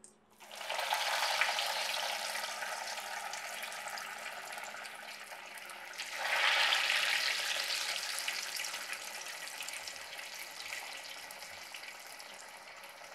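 Breadcrumb-coated vegetable tikki patties deep-frying in hot oil in a kadai. The sizzling rises sharply about half a second in as the first patty goes in, slowly dies down, then surges again about six seconds in as the second patty goes in, and fades once more.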